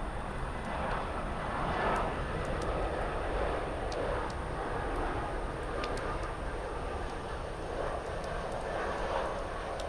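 Airbus A320-214's CFM56 turbofan engines on final approach at low approach thrust: a steady rushing jet drone.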